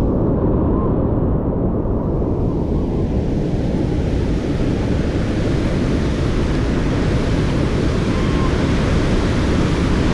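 Steady loud rushing of a large waterfall close by, mixed with wind buffeting the microphone; it turns hissier about two seconds in.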